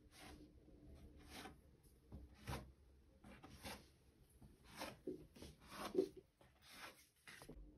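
Soft rubbing and scraping strokes of pastry dough being worked by hand, about eight of them at roughly one a second.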